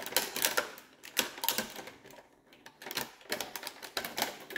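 Packaging of a diecast toy car crackling and clicking in irregular clusters as the car is worked free of its pack by hand.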